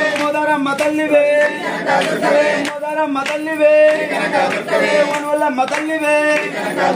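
Devotional singing by a group of voices, mostly male and without instruments, with hand claps among the phrases.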